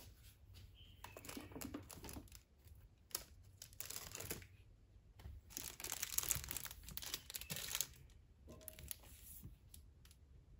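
Paperback manga volumes being gripped, slid along and pulled off a shelf by hand: faint scattered rustling and crinkling with small knocks, busiest in the middle stretch.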